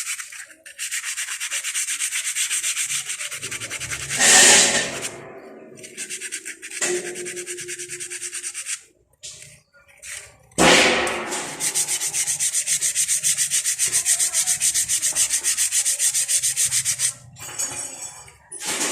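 Brake pad edge being sanded by hand in fast back-and-forth scraping strokes, in three spells with short pauses, chamfering the pad's sharp edge. A louder, sharper scrape or knock comes about four seconds in and another about ten seconds in.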